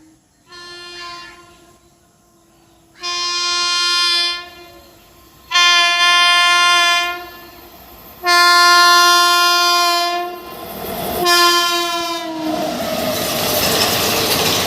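Indian Railways WAP-7 electric locomotive's air horn sounding five blasts on one steady pitch, the first faint and the last shorter, falling in pitch as it ends. The locomotive then passes, and the ICF coaches' wheels run loudly over the track.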